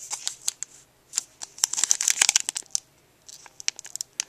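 Trading-card pack wrapper being handled and torn open: scattered crinkles, a dense run of crackling and tearing about a second and a half in, then a few more crinkles near the end.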